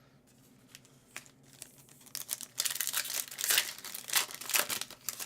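A hockey card pack's wrapper being torn open and crinkled. A few light clicks come first, then about three seconds of loud crackling starting about two seconds in.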